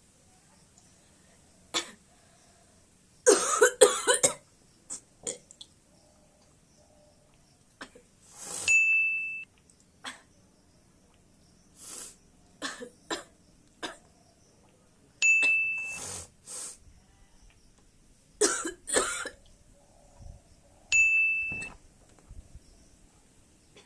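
A person coughing again and again: single coughs and quick runs of several, some of them long and rasping. A short high electronic ding sounds three times, about six seconds apart.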